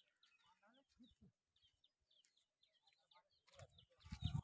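Faint outdoor birdsong: scattered short chirps and calls over near silence, with a few low muffled bumps near the end.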